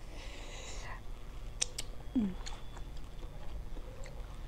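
Wet chewing and small mouth clicks from a person eating raw shrimp in a sour lime and chilli dressing, with a short hiss at the start.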